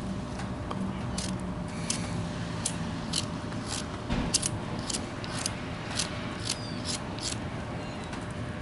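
Knife blade shaving a small wooden block in a run of short cuts, about two a second, with a faint steady hum behind.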